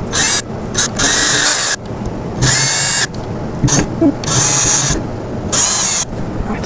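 Cordless drill driving screws into a wooden panel, running in about six short bursts of under a second each, with brief pauses between them.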